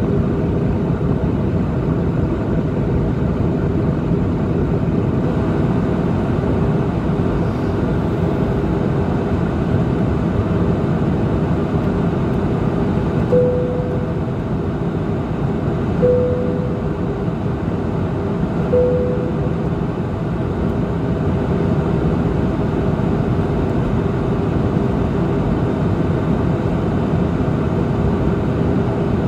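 Steady noise inside an airliner cabin in cruise flight, the jet engines and airflow heard from a window seat over the wing. Near the middle, three short, fading tones sound a couple of seconds apart.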